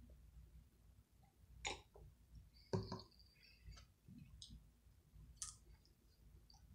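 A few faint clicks and taps of a clear plastic cup and tableware being handled at a table, the loudest nearly three seconds in.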